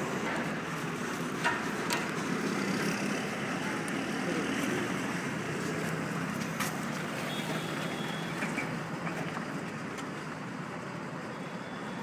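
Steady outdoor background noise with a few sharp clicks, about one and a half, two and six and a half seconds in.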